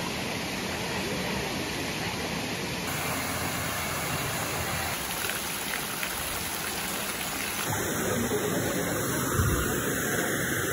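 Steady rush of falling and splashing water in a spring-fed pool, from a small cascade and fountain jets. The sound changes character twice and grows a little louder in the last few seconds, with one low bump near the end.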